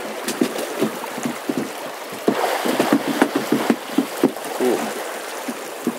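Salmon fishwheel turning in fast river current: rushing water and water spilling off its wire baskets, with irregular short knocks from the turning wooden and pipe frame.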